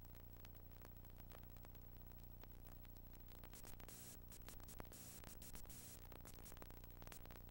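Near silence: the steady low hum and hiss of a blank stretch of videotape, with faint scattered crackles and a short swell of hiss about halfway through.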